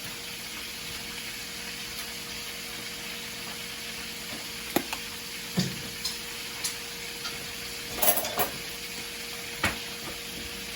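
Steady sizzle of food frying in a pan, with a few sharp clinks and knocks of utensils and dishes, the loudest cluster about eight seconds in.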